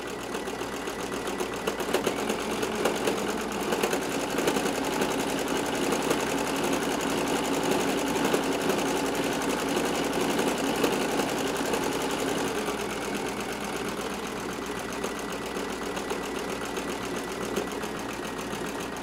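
Home sewing machine running steadily at speed, its needle stitching rapidly in free-motion embroidery.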